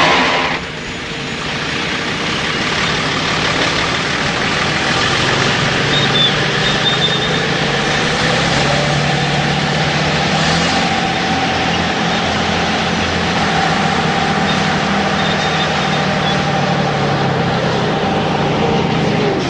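Heavy diesel earthmoving machinery, an excavator and a dump truck, running steadily as the truck is loaded with soil. The engines drone with slow small changes in pitch.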